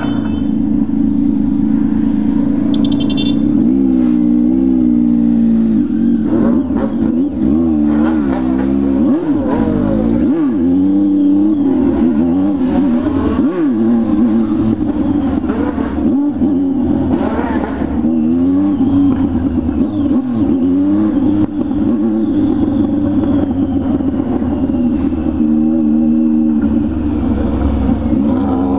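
Motorcycle with a straight-pipe exhaust and no muffler running under way, its engine note rising and falling again and again as it accelerates and eases off. At times a second engine note overlaps it.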